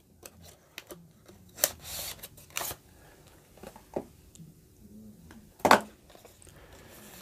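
Cardboard retail packaging being handled: scattered rustles, scrapes and taps as a black inner box is pulled out of its white paperboard sleeve and opened. The sharpest tap comes a little before the end.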